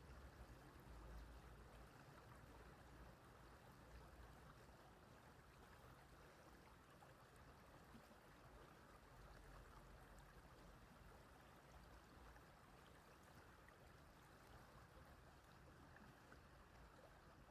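Faint, steady running of a small stream over stones, with a low rumble at times near the start.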